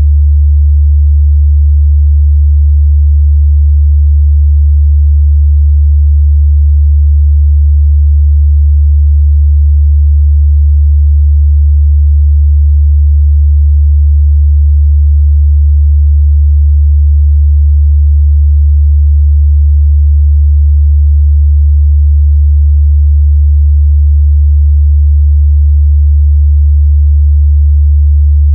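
A steady, loud 73 Hz sine-wave test tone, a single low bass hum that holds unchanged.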